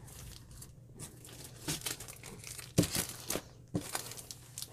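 Plastic packaging of cross-stitch kits crinkling and rustling as the packets are handled and set down, with a few sharper crackles about three seconds in.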